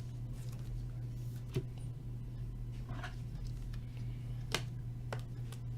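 Trading cards being handled and shuffled through a stack: a few light clicks and a soft rustle over a steady low hum.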